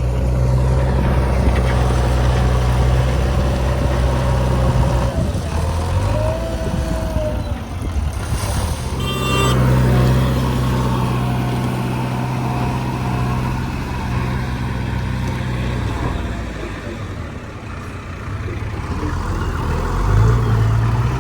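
Diesel engines of construction machinery, a backhoe loader working beside trucks, running steadily. The engine note shifts about five seconds in and rises near the end. A brief high-pitched tone sounds about nine seconds in.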